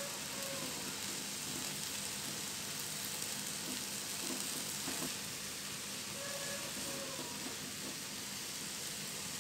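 Eggplant pieces sizzling and bubbling in a thin layer of chilli paste and water in a nonstick wok, cooked without oil, a steady hiss as the liquid boils down. A faint tap or two of the plastic spatula turning the pieces about halfway through.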